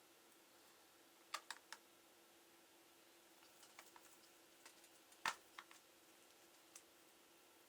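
Sparse light clicks and taps from someone working on a laptop, over near silence with a faint steady hum: three quick clicks about a second in, a few small ticks, then one louder click past the middle.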